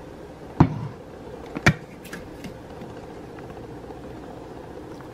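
Two sharp knocks about a second apart as things are set down on a kitchen counter, over a steady low hum.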